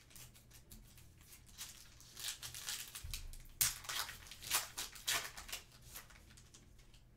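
A trading-card pack wrapper being torn open by hand, crinkling and tearing in irregular crackles. The loudest rip comes about three and a half seconds in.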